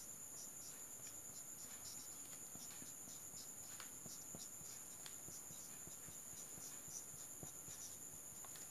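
Whiteboard marker writing on a whiteboard: faint, irregular short squeaks and scratches of the pen strokes.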